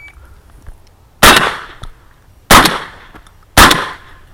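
Three shotgun shots fired in quick succession, about a second apart, each a sharp blast with a ringing tail. Just before them the electronic shot timer's start beep cuts off.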